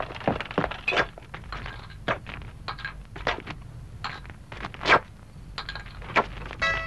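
Cartoon sound effects: irregular small clicks, knocks and scrapes, with a louder knock about five seconds in and another about six seconds in. Music starts at the very end.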